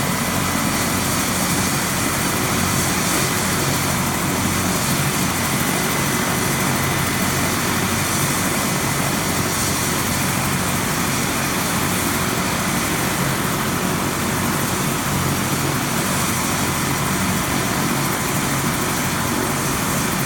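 Helicopter running on the ground, its engine and rotor making a loud, steady, unbroken noise.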